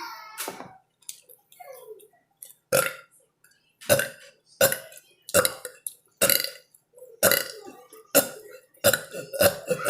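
A child burping: a string of short burps about once a second, coming faster near the end.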